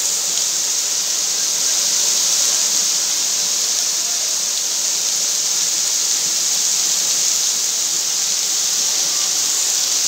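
Waterfall pouring into a pool: a steady, hissing rush of falling water.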